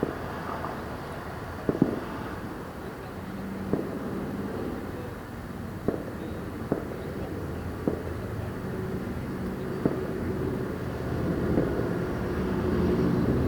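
Distant fireworks going off: scattered sharp bangs every second or two, a pair close together about two seconds in. Under them is a steady low rumble of traffic, and a vehicle's engine hum grows louder near the end.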